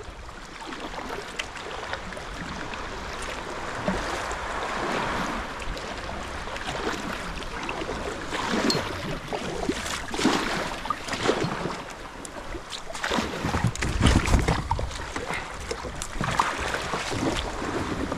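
Kayak paddle dipping and splashing in the water in irregular strokes, with water washing against the hull. A gust of low rumble about two-thirds of the way through, likely wind on the microphone.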